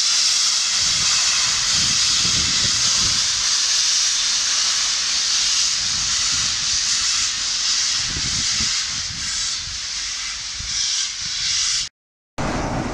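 Loud hiss of steam from A1 Pacific steam locomotive 60163 Tornado as it moves off, steam blasting from its cylinder drain cocks. The hiss eases over the last few seconds and cuts off abruptly near the end.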